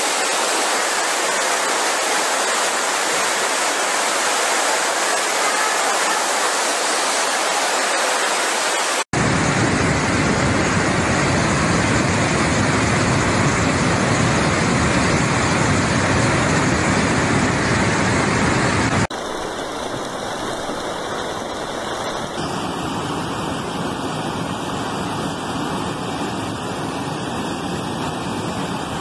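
Muddy floodwater rushing in a torrent, a steady dense rush of water noise. It cuts abruptly to a louder, deeper torrent about nine seconds in, and to a quieter, thinner one about ten seconds later.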